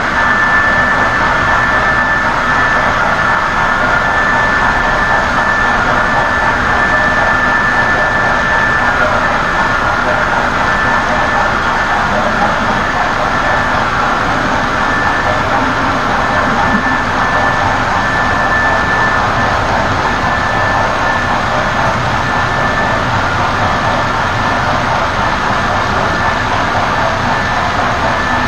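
HO-scale model freight train's hopper cars rolling steadily past on the track: a continuous rolling rattle of small wheels on rails, with a thin steady high whine through it.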